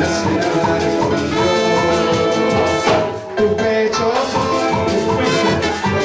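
Band music with brass horns playing a melody over drums and a steady beat.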